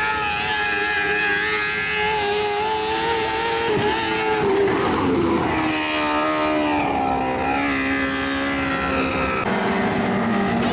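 Engines of several winged dirt-track sprint cars running at racing speed, a steady mix of high engine notes. About four seconds in, the loudest note drops in pitch as one car passes close and backs off, then the notes climb again near the end.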